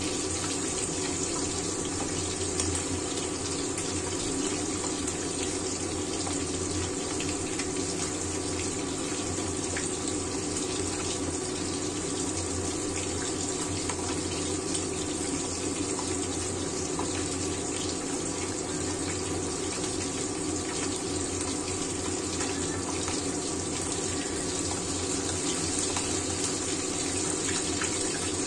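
Mullet pieces frying in hot oil in a wok: a steady sizzle with small crackles and pops.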